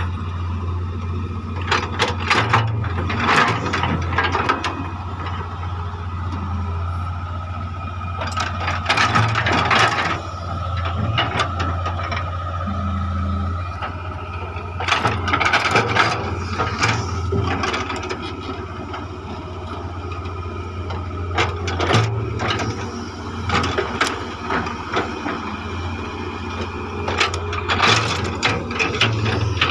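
Hitachi EX100 excavator running steadily at work, a low engine hum with a steady higher tone over it, broken every few seconds by bursts of clanking and knocking.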